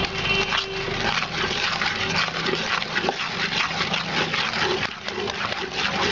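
Thick cake batter being stirred rapidly in a bowl as eggs are worked into the creamed butter and sugar: a continuous run of quick, wet mixing strokes.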